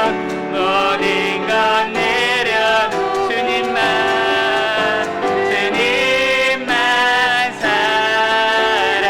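Church praise team singing a worship song with piano accompaniment: voices holding long, sustained melodic lines.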